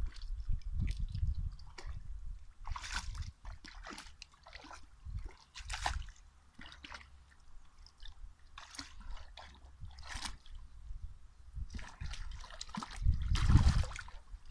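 A Hungarian vizsla wading in shallow water, sloshing and splashing in irregular bursts as it steps and moves its head about; the biggest splash comes near the end.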